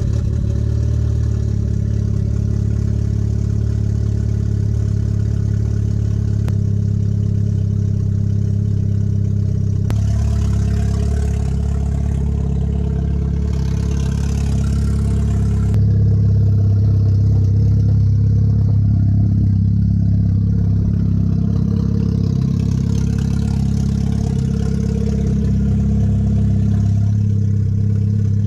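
Built MK6 Golf R's turbocharged 2.0-litre four-cylinder idling steadily, freshly running again on a new cam adjuster, timing chain and tensioner; the idle gets a little louder about halfway through.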